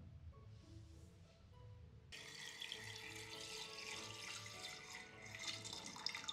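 A stream of liquid poured into a clear plastic wash tank, starting suddenly about two seconds in and running on steadily, over soft background music with a regular beat.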